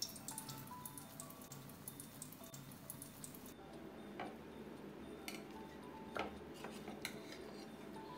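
Faint background music, with the light hiss of an omelette frying in oil in a wok for the first three and a half seconds, stopping suddenly. After that, a few light clicks of metal spatulas against the plate, about one a second.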